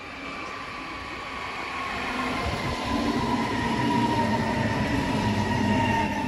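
Red Munich S-Bahn electric multiple unit drawing in and passing close by. It grows steadily louder, with a high whine that slowly falls in pitch and a rumble of wheels on rail that builds up about halfway through.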